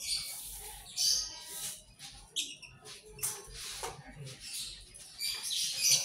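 Lovebird seed mix being scooped and poured into plastic tubs, the seeds rattling in several short pours.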